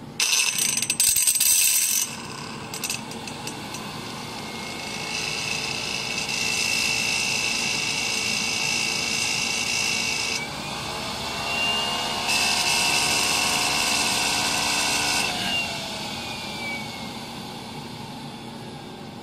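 Electric starter with a solenoid-engaged shaft spinning the compressor of a turbocharger-based turboshaft gas turbine. A loud whirring burst lasts about two seconds, then come two longer starter runs with a high steady whine, one of about six seconds and one of about three. After the second run cuts off, the whine glides down in pitch and fades as the rotor spins down.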